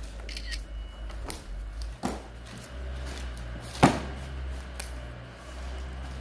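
Sheets of cherry wood veneer handled on a stack, with a couple of short knocks as they are lifted and let fall. The sharpest knock comes a little before the middle, over a low steady hum.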